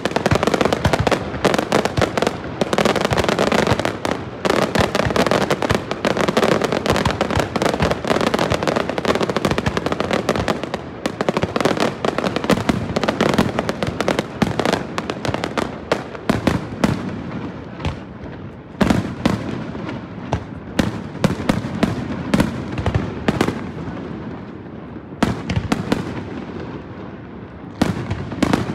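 Aerial fireworks shells bursting: a dense, rapid run of bangs and crackle for about the first half, thinning to separate louder booms with gaps between them in the second half.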